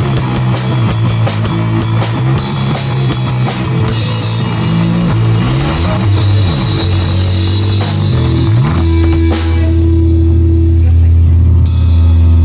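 Live rock band playing: drum kit, electric guitar and bass. About nine seconds in the drums drop out and a low chord is held, ringing on to the end.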